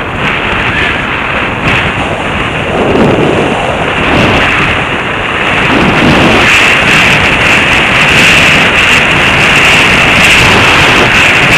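Loud wind buffeting on a bicycle-mounted camera's microphone while riding, a steady rushing noise with heavy low gusts about three and six seconds in, getting louder from about six seconds in.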